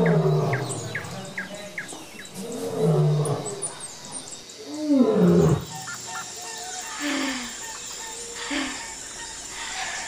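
Lions growling and roaring: several rising-and-falling calls, the loudest about five seconds in, over birds chirping.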